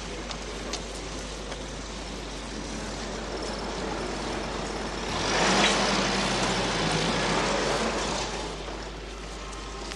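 A motor vehicle engine running, swelling to its loudest a little past halfway and easing off near the end.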